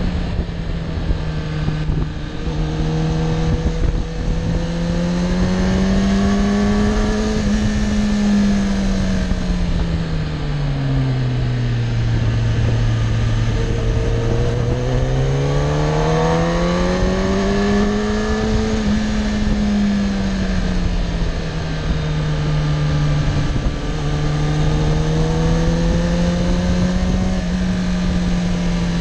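Sport motorcycle engine running at varying revs through a series of bends, over steady wind rush. The engine note sinks to its lowest about halfway through as the bike slows, then climbs again as it accelerates.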